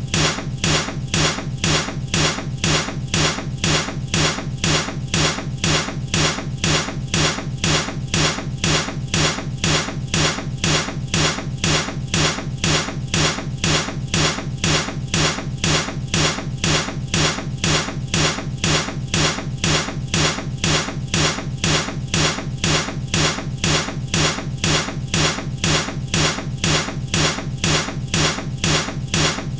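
Baseball bat striking something over and over in a loop, sharp even hits at about two a second.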